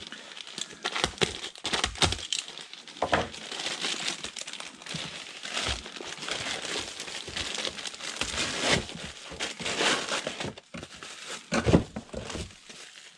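Packaging crinkling and rustling as a new air filter is unpacked, with short handling knocks and one sharper knock near the end.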